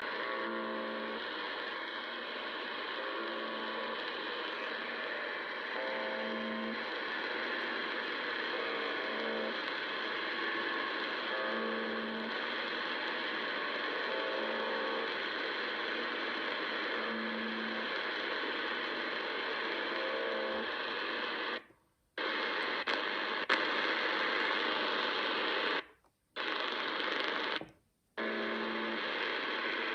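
UVB-76 'The Buzzer' on 4625 kHz received on a shortwave radio: short, harsh buzz tones repeating every one to three seconds over steady static hiss. The signal cuts out to silence briefly three times near the end.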